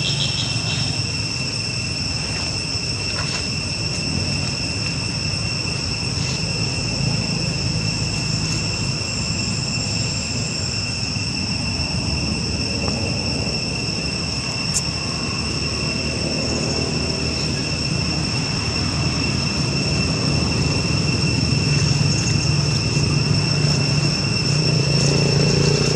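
Outdoor ambience: a steady high-pitched insect drone over a low rumble that grows a little louder toward the end.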